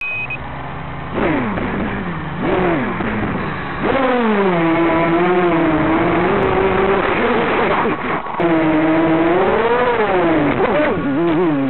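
ZMR quadcopter on a 3S battery, its brushless motors and propellers whining, the pitch swooping up and down with the throttle. It holds steady for a few seconds in the middle and briefly drops out a little after 8 seconds.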